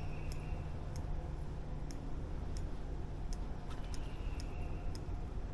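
Outdoor creek-side ambience: a steady low rumble with a light, regular ticking about once every two-thirds of a second, and a faint high tone near the start and again about four seconds in.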